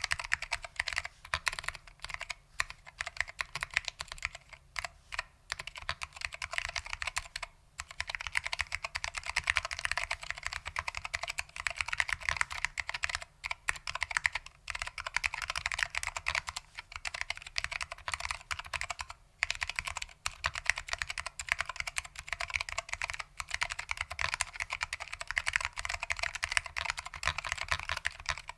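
Continuous fast typing on a custom Lunar AEK 65 keyboard with foam-damped SKCM Orange Alps switches, a dense run of keystroke clicks with only brief pauses.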